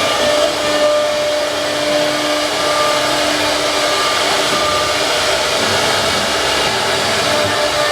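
Wood CNC router running steadily: a loud, even hiss with a few steady whining tones over it.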